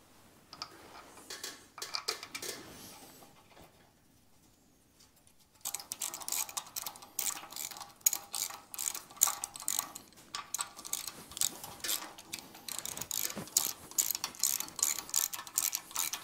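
Ratchet wrench clicking in quick runs as the bolts of the transmission bearing retainer are run in and snugged up against the cast-iron housing. It starts about a third of the way in, after a few light clinks of handling.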